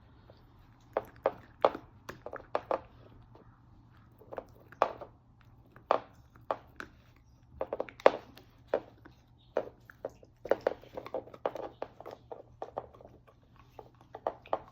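Irregular light clicks and knocks from a Cardigan corgi puppy, sometimes several a second in quick clusters.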